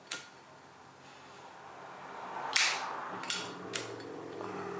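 Zippo lighter clicking: four sharp metallic clicks, one at the start and three close together between about two and a half and four seconds in.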